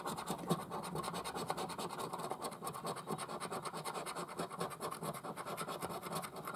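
A coin scraping the coating off a paper National Lottery scratchcard: a steady run of quick back-and-forth rasping strokes.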